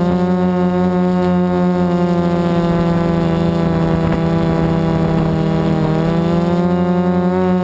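Multirotor drone's electric motors and APC 4.7x10 propellers droning steadily in flight, the pitch dipping briefly and recovering about six seconds in.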